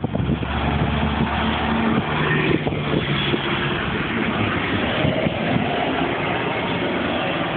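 Road traffic on a busy city street: motor vehicles, a bus among them, running close by. A low engine hum is strongest in the first two seconds.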